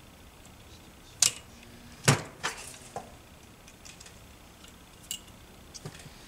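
A few sharp little metal clicks and clinks from needle-nose pliers and a pick working a wrist-pin circlip into the piston of a Tomos moped's 70cc kit, the loudest about two seconds in.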